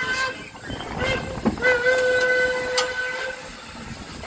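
Steam locomotive whistle sounding one steady note: a blast that ends just after the start, then after a short gap a longer blast of about a second and a half.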